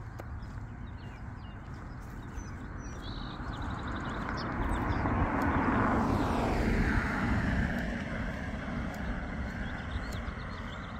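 A motor vehicle passing on the road: its noise swells over a few seconds, peaks about six seconds in with a falling pitch as it goes by, then fades. Birds chirp faintly around it.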